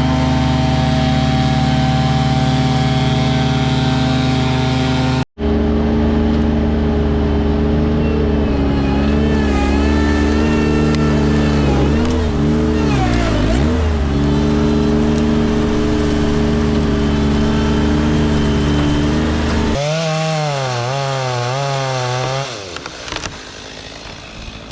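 Chainsaw running at steady high speed, its pitch dipping briefly in the middle as the bar bogs in the cut, with a sudden break about five seconds in and the sound dropping away near the end.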